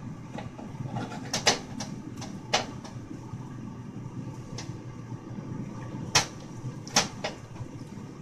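A handful of short, sharp clinks and knocks from a kitchen utensil and bowl as the chocolate is checked, over a steady low hum: two close together about a second and a half in, one at two and a half seconds, and two more around six and seven seconds.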